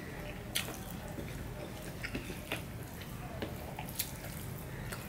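Eating sounds: rice and vegetable curry being mixed by hand on a steel plate, with small wet squishes and a few sharp clicks, over a low steady background hum.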